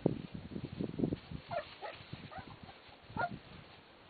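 Beagle puppies giving short high yips and whimpers, several small ones in the middle and a louder one near the end. Dull low bumps come in the first second.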